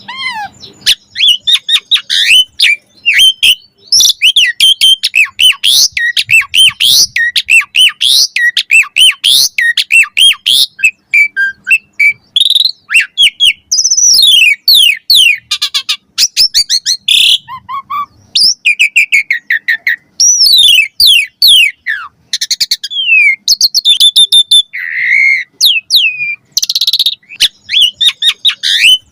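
Asian pied starling singing a long, fast, varied song of whistles, chirps and sliding notes, packed with mimicked fill-in phrases.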